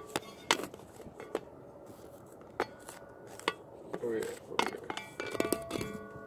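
Metal hand tools clinking irregularly, each sharp clink followed by a short ring, as a ratchet and extension are fitted onto and knocked against an upper control arm bolt.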